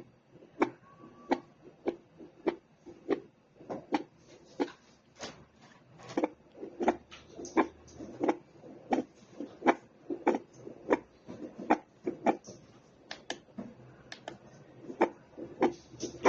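Heartbeat played through a fetal Doppler monitor's speaker: a steady pulse of sharp beats at about a hundred a minute.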